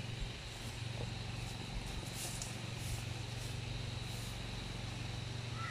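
A steady low hum throughout, with faint intermittent rustling of leaves and branches as an Asian elephant feeds.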